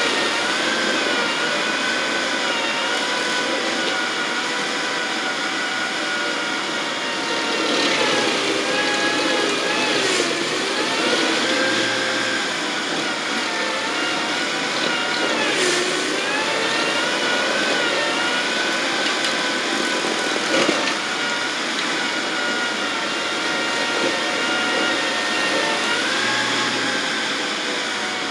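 Engine of a working landscaping machine running steadily at high speed, its pitch dipping briefly several times as it takes load.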